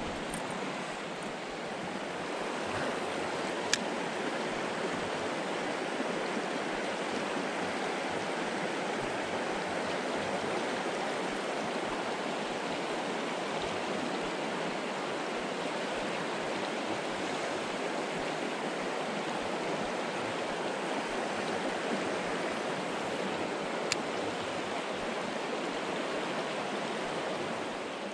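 Steady rush of water from a shallow, rocky mountain creek running over stones, with two brief sharp clicks, one about four seconds in and one near the end.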